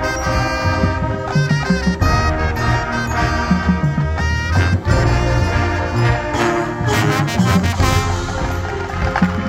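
Marching band playing its field show: brass holding and moving through chords over low drum hits and front-ensemble percussion, with a run of sharp crashing strokes about seven seconds in.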